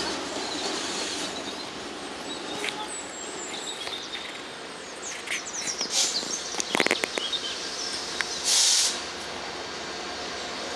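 A freight train running on the line: steady rail noise, with a cluster of sharp clicks about six to seven seconds in and a short burst of hiss near the end.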